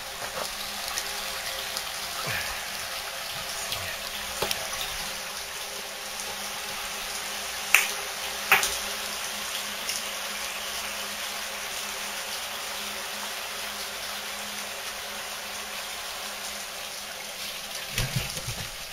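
Water spraying from sprinkler heads inside a wood-gas scrubber tank made from a well pressure tank, a steady hiss of spray with water pattering on the tank walls. A few sharp clicks sound about eight seconds in, and a couple of knocks near the end.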